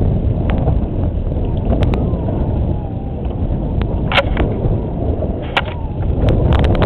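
Wind buffeting a head-mounted action camera's microphone on an open boat at sea, a steady low rumble, with sharp knocks about four and five and a half seconds in and a quick cluster of them near the end.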